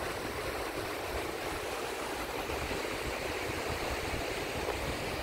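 Small lake waves breaking and washing onto a sandy shore, a steady rushing hiss with no distinct breaks, over a low irregular rumble.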